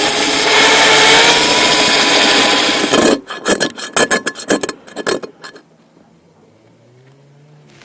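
Rust being worked off a cast iron skillet: about three seconds of steady, loud grinding, then a quick run of short rasping scrapes that stops about halfway through.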